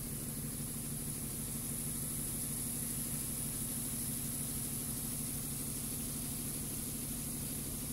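Steady machine hum, a low even drone with a thin high hiss over it, unchanging throughout.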